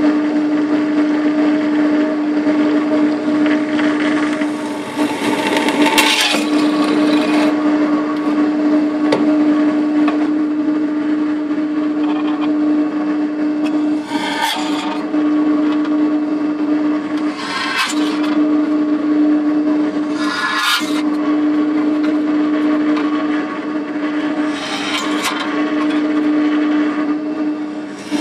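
Pillar drill (drill press) motor running with a steady hum while a 5 mm bit drills through a thin metal panel. Each hole comes as a short burst of scratchy cutting noise, about five times.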